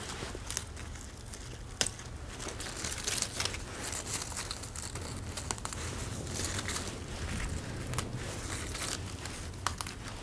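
Lettuce leaves being snapped off the plants one at a time and bunched in the hands: crisp crinkling and tearing, with short sharp snaps scattered throughout.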